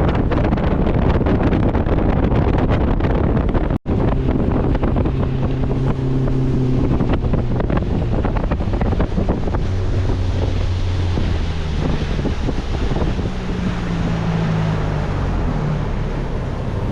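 Boat's outboard motor running under way, mixed with heavy wind buffeting the microphone. The sound cuts out for an instant about four seconds in.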